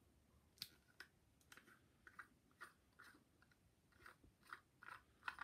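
Faint, irregular short clicks, about two or three a second, against near silence.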